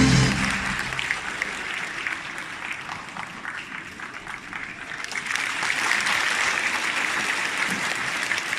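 Large audience applauding, easing off near the middle and then picking up again. Music trails off in the first second.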